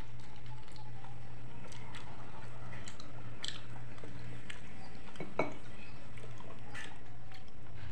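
Close-up mouth sounds of eating cow's-foot gulai (kikil): wet chewing, sucking and lip smacks in scattered short clicks, with one sharper click about five and a half seconds in. A steady low hum runs underneath.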